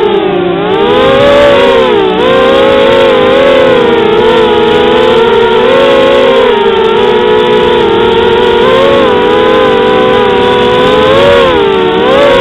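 Quadcopter's electric motors and propellers buzzing loudly, several close tones wavering up and down together as the throttle changes, with a dip in pitch about half a second in and a rise near the end.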